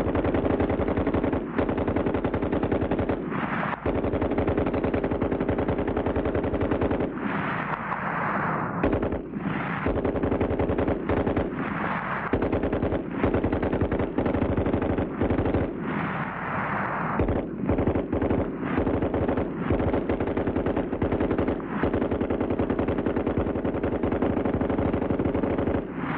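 Water-cooled Browning machine gun firing long, sustained bursts of automatic fire, broken only by a few brief pauses.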